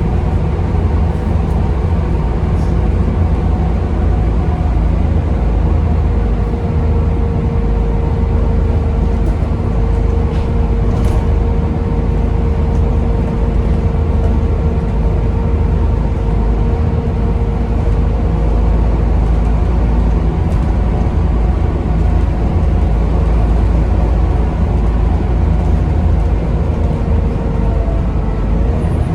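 Volvo B7TL double-decker bus running, heard from on board: a low engine rumble under a steady, loud whine from its cooling fans.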